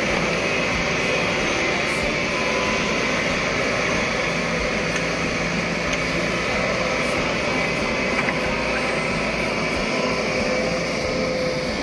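Sumitomo crawler excavator's diesel engine running steadily under load as the excavator digs and moves earth.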